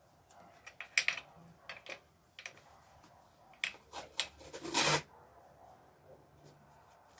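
Masking tape being pulled off the roll, torn and pressed on, with small rustles and clicks, and one longer, louder pull about five seconds in.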